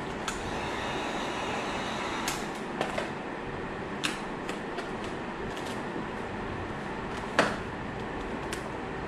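Steady rushing noise with scattered sharp clicks and taps from hands and tools working vinyl tint film onto a car tail light; the loudest tap comes about seven seconds in.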